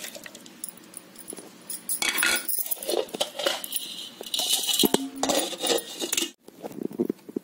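Scattered clinks and knocks of a stainless-steel mixer-grinder jar being handled as mango pieces go into it.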